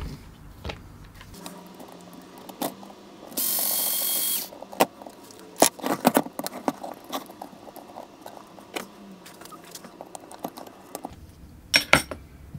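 Small clicks, taps and scrapes of screws being undone and plastic and metal parts being handled on an RC crawler's axle differential cover. About three and a half seconds in there is a loud rushing noise lasting about a second.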